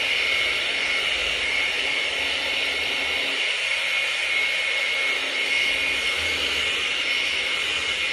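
Hair dryer blowing steadily, a rush of air with a steady high whine.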